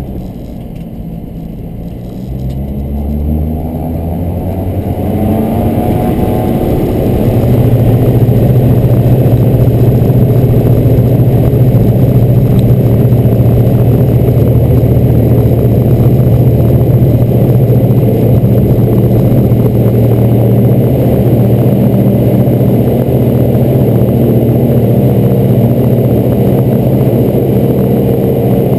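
Robin DR400 light aircraft's four-cylinder piston engine and propeller heard from inside the cockpit, rising in pitch and loudness over the first several seconds as full take-off power comes in, then holding a steady full-power drone through the take-off roll and climb-out.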